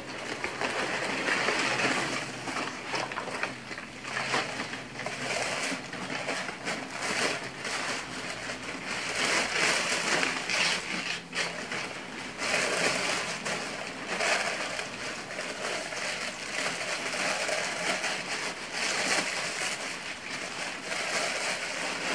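Crumpled brown kraft packing paper and honeycomb paper wrap being rummaged and crinkled by hands in a cardboard box: continuous, irregular rustling and crackling.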